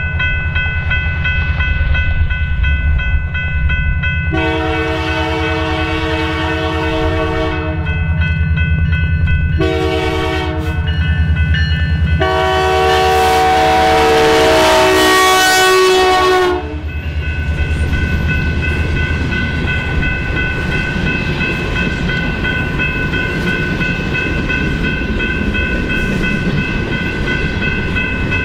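Canadian Pacific GP20C-ECO diesel locomotive sounding its horn in the grade-crossing pattern as it passes close by: a long blast, a short one, then a long one that is the loudest and cuts off suddenly. Under the horn is the steady rumble of the locomotive and wheels. After the locomotive passes, the boxcars roll by with a steady rumble and a steady high whine.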